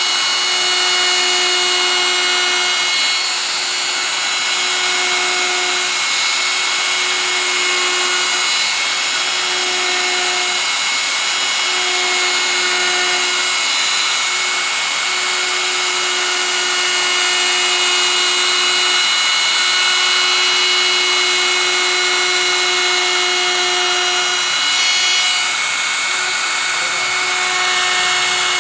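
Handheld plunge router running at full speed with a steady high whine, its spinning bit cutting grooves into a wooden board.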